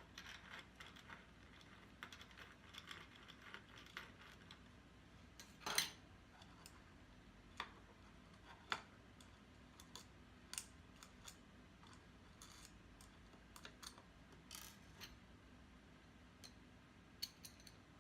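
Faint, irregular clicks and taps of small parts being handled: an SSD enclosure and its cover being fiddled with and adjusted by hand, the sharpest click about six seconds in.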